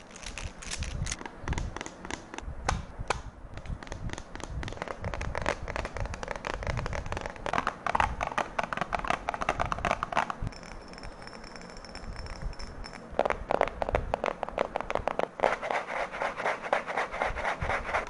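Fingertips tapping fast and irregularly on small handheld objects, a dense patter of light clicks. It eases off for a couple of seconds past the middle and then picks up again.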